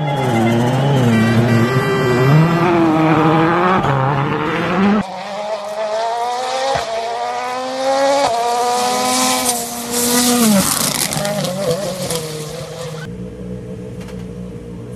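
1.6-litre turbocharged four-cylinder World Rally Car engines at full stage pace. The first revs up and down as it drifts through a snowy hairpin. After about five seconds a second car accelerates hard, its pitch climbing in several rising pulls through the gears with a hiss of spray. Near the end a lower, steady hum takes over.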